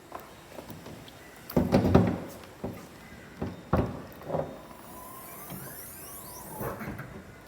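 A car's lid and latch being handled: a heavy thud about a second and a half in, the loudest sound, then several sharper knocks and clicks, with a faint sweeping tone near the end.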